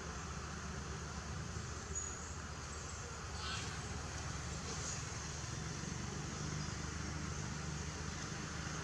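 Steady outdoor background noise with a low rumble, like distant traffic, and a few faint short high chirps about two, three and a half and five seconds in.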